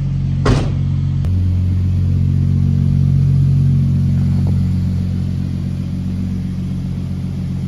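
Nissan Skyline R32 GTS4's RB20 straight-six running steadily at low revs, with a sharp click about half a second in. The engine is knocking bad from a suspected spun bearing, but the knock doesn't come through at idle.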